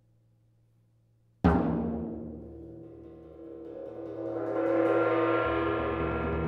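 Solo multipercussion on gongs, suspended cymbals and drum: a sudden loud mallet stroke about a second and a half in that rings and slowly dies away, then a mallet roll on the gongs and cymbals swelling up and ringing on.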